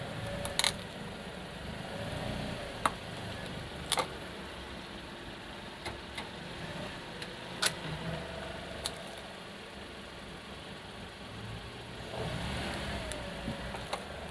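Car engine running slowly as the tyre rolls onto a small plastic toy, with a handful of sharp clicks and cracks from the plastic under the tyre.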